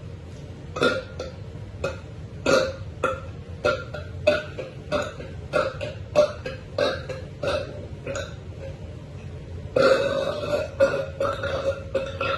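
A woman burping repeatedly: a quick string of short burps, about two a second, then one long drawn-out burp near the end.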